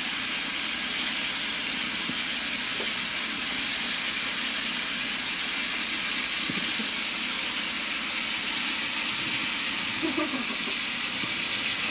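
Water running steadily from a bathroom tap into the sink, an even hiss.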